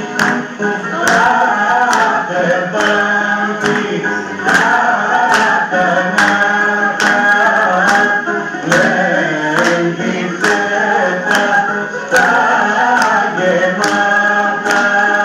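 Greek zeibekiko music: a sung melody over instrumental accompaniment, with regular sharp strikes marking the beat about once a second.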